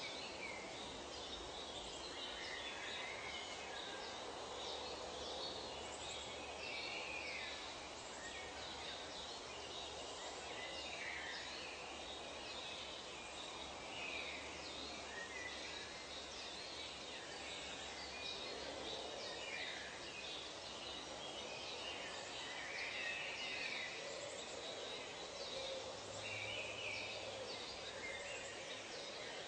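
Nature ambience: many birds chirping and calling in short, overlapping phrases over a steady hiss of background noise.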